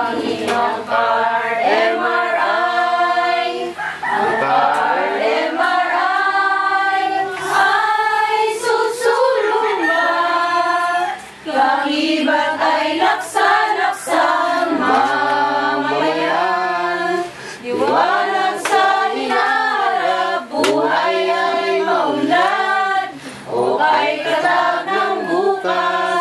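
A group of women singing a Tagalog song together, phrase after phrase with short breaths between lines.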